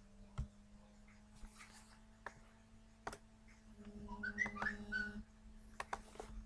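Faint steady hum with a few sharp mouse clicks. About four seconds in comes a brief burst of high chirping whistles, the loudest sound here.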